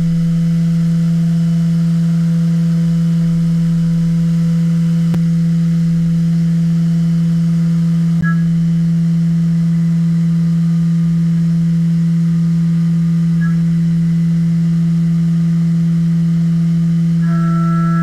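CNC vertical machining center milling an aluminium adapter plate under flood coolant: a loud, steady hum at one pitch from the spindle and cutter, with faint short high tones a few times.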